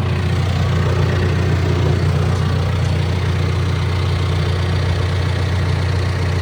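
John Deere 410K loader backhoe's diesel engine idling steadily.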